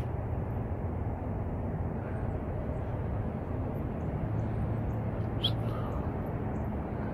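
Steady low outdoor rumble, with a brief high chirp about five and a half seconds in.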